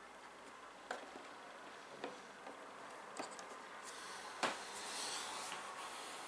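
A few light, separate clicks about a second apart, then a soft rustle: hands handling computer hardware during assembly.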